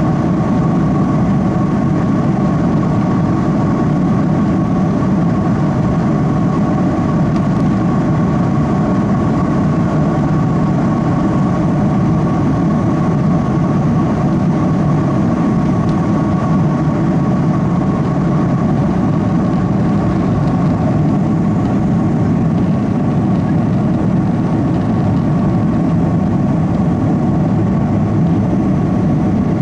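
General Electric CF6-80E1 turbofan engines of an Airbus A330-200 at takeoff thrust, heard from inside the cabin: a loud, steady roar with a steady high whine on top, through the takeoff roll and initial climb.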